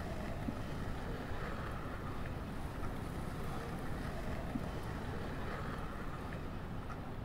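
Steady low outdoor rumble, with wind buffeting the microphone.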